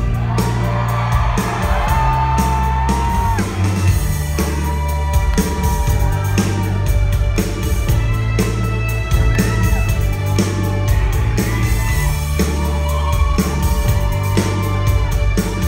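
Synth-pop band playing live: a steady drum beat, heavy bass and a sustained synthesizer melody, loud and full in the hall.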